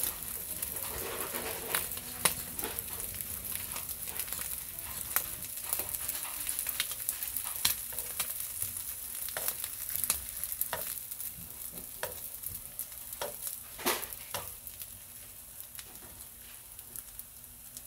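Egg-dipped Spam slices sizzling in oil in a nonstick frying pan, with frequent sharp pops and clicks as metal tongs turn the slices. The sizzle grows quieter near the end.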